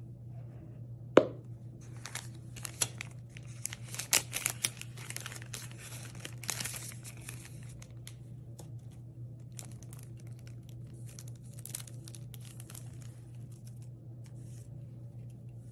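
Thin clear plastic film crinkling and tearing as it is peeled off a pair of eyeglasses, in bursts over several seconds with a pause in between. One sharp knock about a second in.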